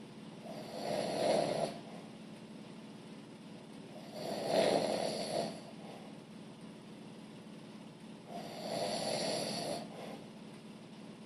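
A man snoring in his sleep: three long snores about four seconds apart, each lasting over a second.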